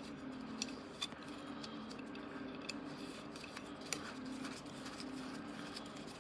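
Scattered small metallic clicks and taps from bolts being threaded by hand onto the camera's wheel kit, over a steady low hum.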